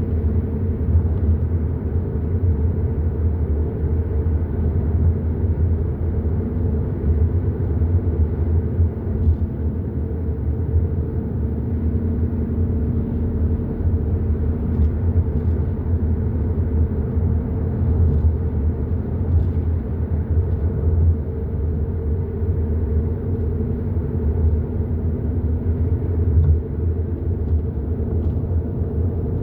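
Hyundai i30 N Line driving at steady speed: a continuous low rumble of engine and tyre road noise.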